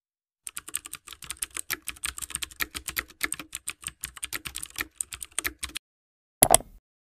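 Rapid typing on a computer keyboard: a dense run of key clicks lasting about five seconds, then a louder double click about a second later.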